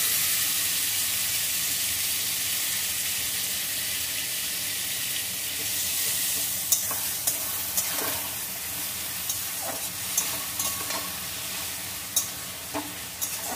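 Wet spice mixture with tomato sizzling as it hits hot oil and fried onions in a metal kadai, loudest at first and slowly settling to a steady frying hiss. From about halfway in, a metal spatula stirs and scrapes the pan with sharp clicks as the masala is fried.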